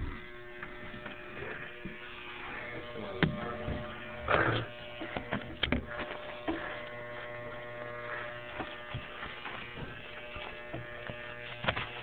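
Electric shaver buzzing steadily, with a few sharp clicks and a short rustling burst about four seconds in.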